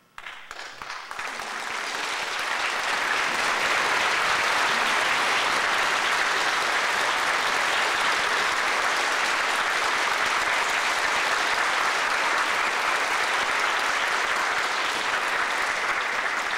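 Audience applause breaks out suddenly, swells over about two seconds and then holds as steady, dense clapping, marking the end of an orchestral performance.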